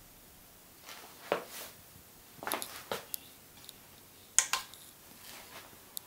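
Several faint, separate clicks and small knocks spread over a few seconds, the sharpest about four and a half seconds in, as the dock is switched on.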